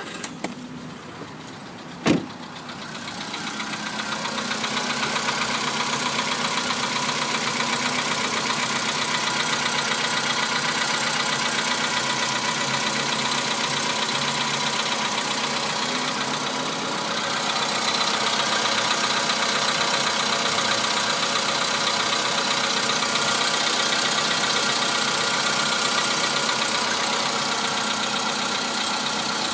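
Volkswagen Polo Sedan engine running cold with a fast, steady knock. The knock is a cold-engine knock that the owner hears go away once the engine warms up. About two seconds in there is one sharp click, and the engine sound then builds up over a few seconds and holds steady.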